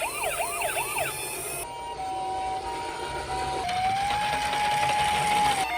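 Electronic toy-vehicle sirens. First a fast yelping siren sweeps up and down about four times. It then switches abruptly to a steady held tone, which glides up about halfway through to a slightly higher steady tone with a buzzing hiss behind it.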